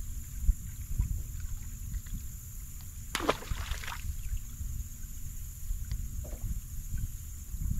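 Low wind rumble and water moving around a bass boat, under a steady high hiss. About three seconds in, a short sound sweeps quickly down in pitch.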